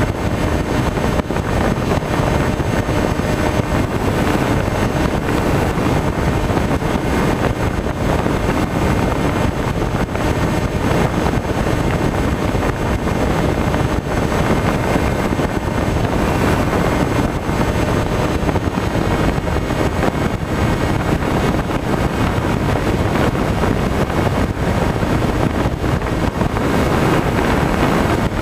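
Steady wind rush and propeller drone from a Skywalker FPV plane's electric motor in cruising flight, picked up by its onboard camera, with a faint steady high whine running through it.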